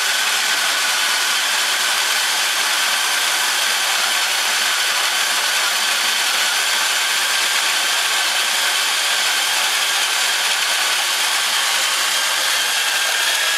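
Corded electric drill driving a grain mill, running steadily with a whine as malted grain is crushed in the mill.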